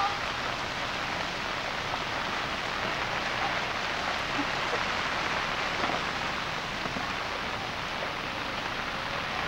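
Steady hiss of rain falling on floodwater.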